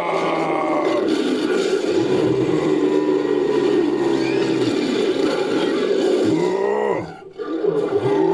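Creature sound effect of layered big-cat roaring and growling, drawn-out and rasping, with the pitch bending up and down. It breaks off briefly about seven seconds in and then starts again.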